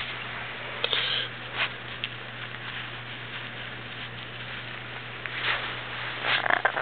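Yellow-naped Amazon parrot making a few short raspy, scratchy sounds at irregular moments, the loudest a brief rough call near the end.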